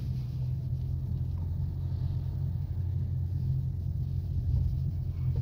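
Tow truck's engine running with a steady low rumble, heard from inside the dead car carried on its bed.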